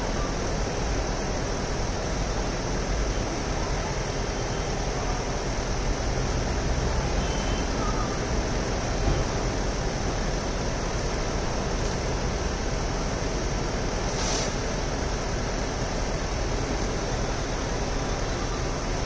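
Steady low rumble and hiss of street noise, with engine running close by, and a single brief tick about fourteen seconds in.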